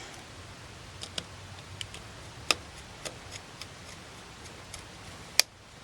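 Small, sharp clicks and taps at irregular intervals, about a dozen, the loudest about halfway through and just before the end: a small screwdriver and screw working against the back of a Canon 5D Mark III camera body as its screws are fitted back in.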